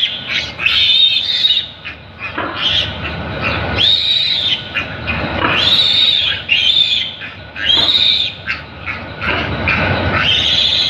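Piglet squealing loudly and repeatedly while restrained for castration: high squeals that rise and fall, about one a second.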